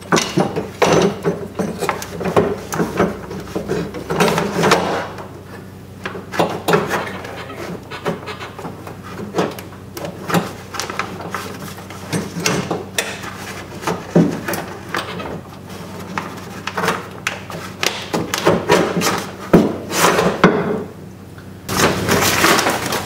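Metal window regulator rail and power window motor knocking, rattling and scraping against the steel door shell as they are worked into place by hand through the door's access hole, in irregular clunks and clicks. Near the end, a denser rustle as the plastic door vapor barrier is handled.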